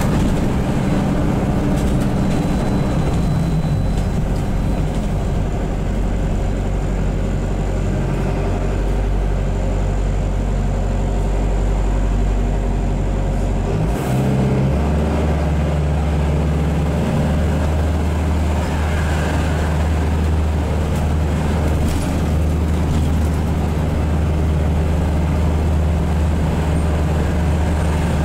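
Van Hool AG300T trolleybus's auxiliary diesel engine running as the bus drives, heard from inside the passenger cabin. About halfway through, its note shifts to a lower, steadier hum, with a brief click at the change.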